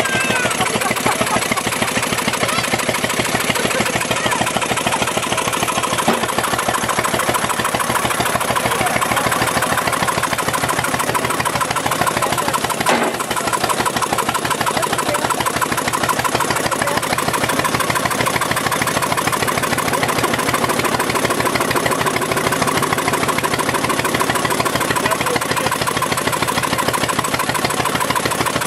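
3 HP Ideal hit-and-miss gas engine running with a fast, even beat, with a short break about halfway through.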